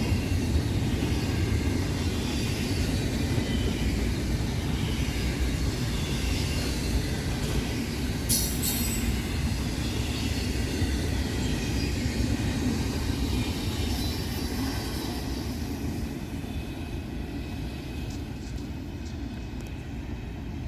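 Freight train cars rolling past on the rails with a steady rumble and clatter as the last cars go by, easing off a little near the end. A brief high-pitched screech about eight seconds in.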